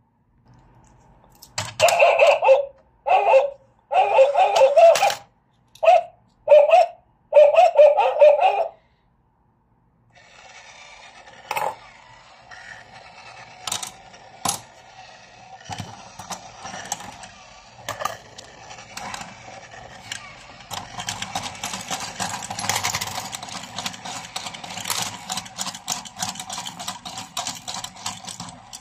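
Toy coin bank's electronic dog barks, about six short woofs in the first nine seconds. Then a small motor whirs with a run of plastic clicks and coin clinks as the mechanism takes the coin, growing louder about two-thirds of the way through.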